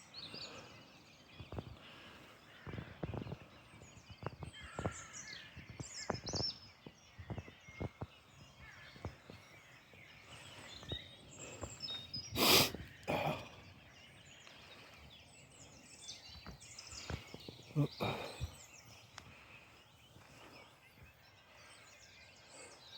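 Small birds chirping and singing on and off, with a faint outdoor background. A loud, short, noisy sound comes about halfway through and a smaller one about three-quarters of the way through.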